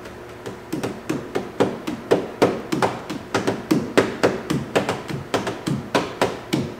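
A rhythmic run of sharp taps and knocks, about two to three hits a second with lighter ones in between.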